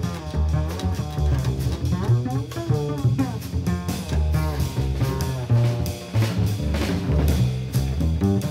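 Small-group jazz recording: double bass and drum kit playing together, with cymbal strikes and a higher melodic line over them.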